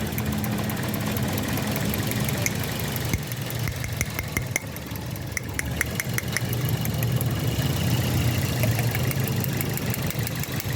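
Toyota Corolla engine idling steadily, with a regular sharp ticking over it. The engine has a slight misfire that the mechanic puts down to a weak No. 2 ignition coil.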